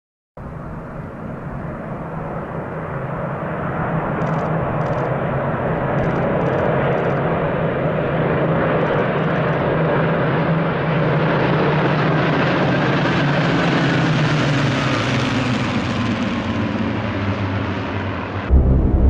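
Propeller aircraft engine droning as it passes, growing steadily louder, with a faint falling whine in the later part, then cut off abruptly near the end.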